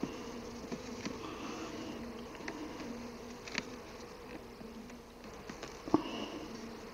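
Honeybees buzzing steadily over an opened hive, their drone wavering a little in pitch. A few light clicks and one sharper knock about six seconds in as a wooden-and-plastic frame is worked loose in the polyurethane hive body.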